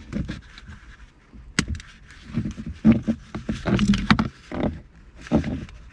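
Black plastic trim piece on the automatic shift lever being twisted and worked loose by hand: irregular plastic clicks and knocks, with a sharp click about a second and a half in.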